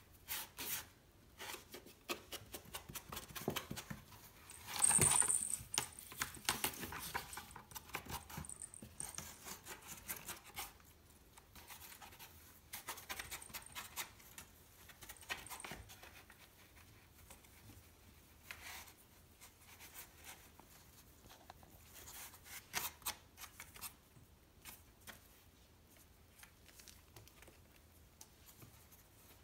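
A Devon Rex kitten's claws scratching and scrabbling on a corrugated cardboard scratcher in short, irregular scrapes and clicks as it plays. About five seconds in, the loudest moment, comes a burst of scratching with a brief high jingle like a small toy bell.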